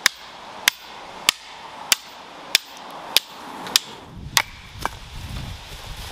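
Hatchet chopping kindling on a wooden chopping block: about nine sharp chops, one every half second or so, then softer rustling as the split wood is handled.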